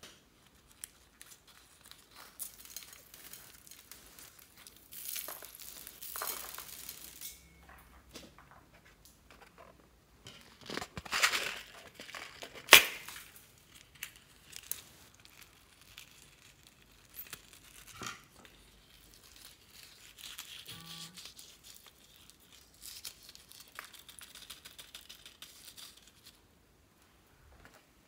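Scissors snipping through balloon rubber and the cut rubber skin being peeled and crinkled between the fingers, in irregular handling noises and clicks, with a few sharper snaps about halfway through.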